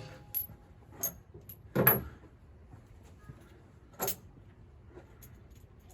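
Four short metallic clinks and knocks from bolts and steel hitch parts being handled while the Goosebox's bolt holes are lined up. The loudest comes about two seconds in, and one more follows about four seconds in.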